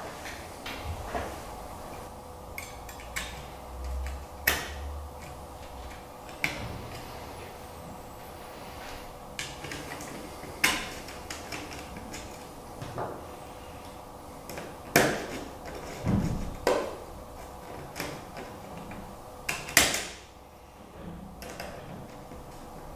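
Hands handling a circuit board and clear acrylic kit parts on a cutting mat: a scattered series of sharp clicks and taps as the pieces are moved, fitted and set down, over a faint steady hum.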